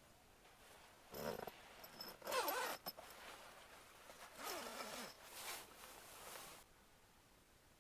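A zipper being pulled in about four short strokes, the longest about two and a half seconds in.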